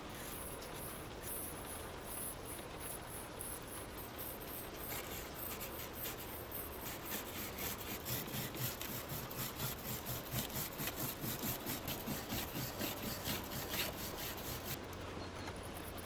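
Rhythmic hand-scrubbing strokes on the rusted steel of a toothed trowel, about three strokes a second, most distinct in the second half.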